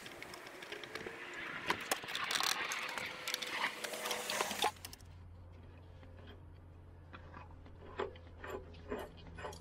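Handling noise at the Kubota tractor's fuel filler: rustling and several sharp knocks as the filler funnel is pulled out. After about five seconds this gives way to a steady low hum and a run of light clicks and taps as gloved hands work at the water/fuel separator on the engine.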